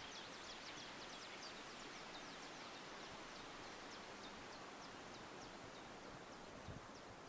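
Faint outdoor ambience with birds chirping: many short, high, falling notes in quick succession that thin out toward the end.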